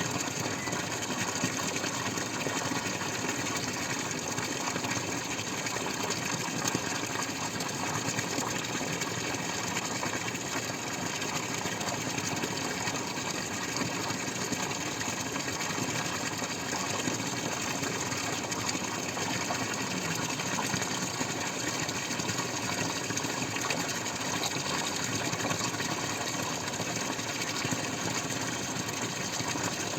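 Water splashing and dripping in a dense, steady patter, with no pauses.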